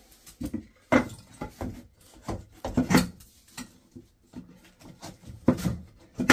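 Irregular knocks, clunks and scraping of wood and metal parts being handled, with the loudest knocks about a second in, near three seconds, and twice around five and a half seconds.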